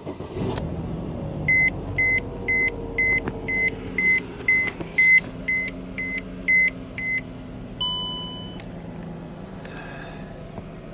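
Mercedes-Benz C300 (W204) engine idling just after starting, with a run of about a dozen short, high warning beeps at roughly two a second from the car, followed by one longer, lower chime.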